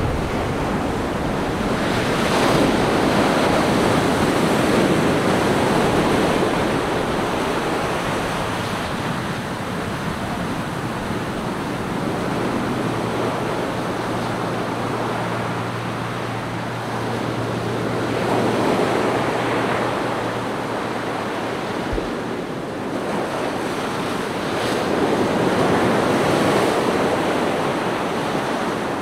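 Small ocean waves breaking and washing up a sandy beach, the surf swelling and easing every several seconds.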